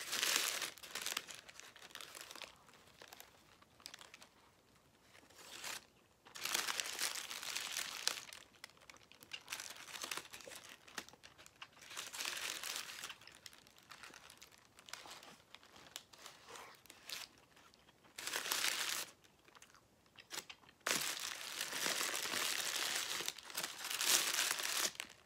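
Paper wrapper around a burrito crinkling in several bursts as it is handled and peeled back, with quieter stretches between; the longest burst comes near the end.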